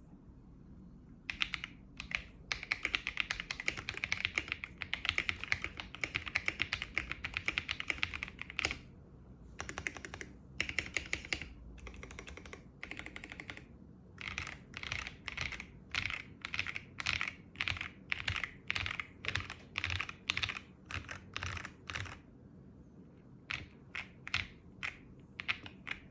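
Typing on a custom mechanical keyboard in an acrylic case, with Akko CS Radiant Red linear switches, Akko Cherry-profile keycaps and a tape and PE-foam mod. There is fast continuous typing first, then short runs of keystrokes, then single key presses at about two a second, and a few last strokes near the end.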